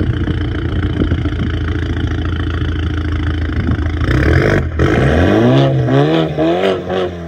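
Straight-piped, Stage 2 tuned BMW 320 M Sport with downpipes idling steadily, then blipped several times in quick succession about four seconds in, the engine note rising and falling with each rev before settling back toward idle.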